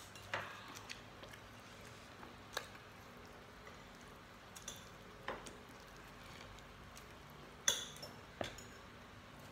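A handful of short clinks and taps of plates, a spoon and an earthenware serving pot being handled during a meal, spaced a second or two apart, the loudest near the end.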